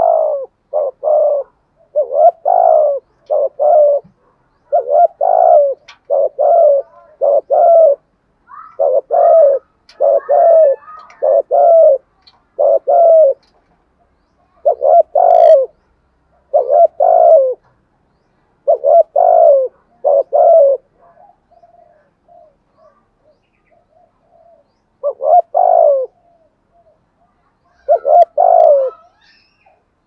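Spotted dove cooing close by: the rapid cooing that Vietnamese dove keepers call "thúc gù". It gives short, falling coos in quick pairs and threes, and pauses briefly about two-thirds of the way through before two more groups.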